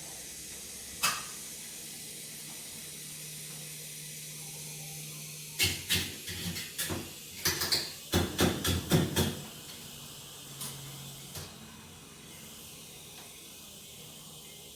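Refrigerant gas hissing steadily out of a freezer evaporator line pierced with a knife while chipping ice, a sign of a gas leak. A sharp knock comes about a second in, and a run of knocks and clatter falls in the middle.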